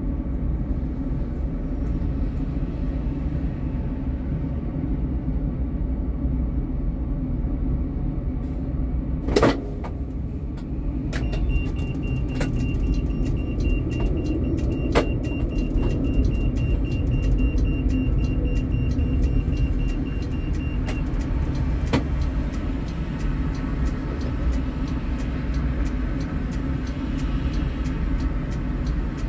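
A Helsinki tram running along its line with a steady low rumble. There is one loud sharp click about nine seconds in, then a thin steady high tone with scattered clicks for about ten seconds, and rapid clicking near the end.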